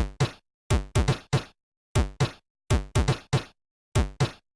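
Intro music: a repeating pattern of sharp electronic drum hits, several a second, each with a short tone that drops in pitch, with clean silence between hits.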